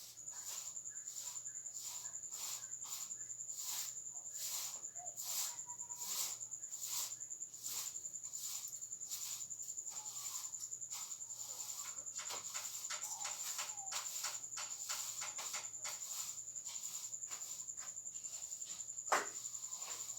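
Crickets chirping in a steady high trill of rapid pulses, with one sharp knock near the end.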